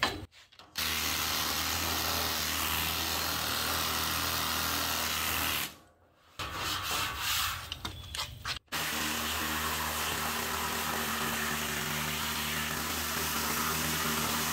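Pneumatic air file (straight-line air sander) sanding down the high spots of body filler on a steel dash, running with a steady hum. It runs for about five seconds, stops for about three seconds with a little handling noise, then runs steadily again.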